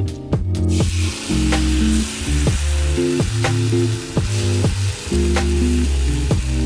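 Food sizzling in a hot frying pan, the sizzle starting just under a second in, under background music with a steady beat.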